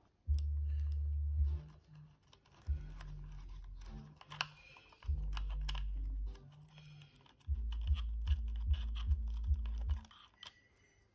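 Small plastic clicks and taps from handling a Sverdlovsk-4 light meter and working at the cover on its side, over background music with deep sustained bass notes.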